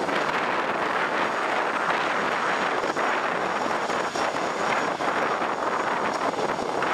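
Boeing C-17 Globemaster III's four Pratt & Whitney F117 turbofan engines running, a steady even rushing jet noise that holds level throughout.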